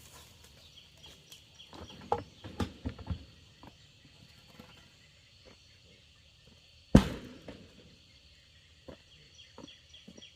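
A handful of knocks and clatter, then one loud thump about seven seconds in, over a steady high-pitched drone.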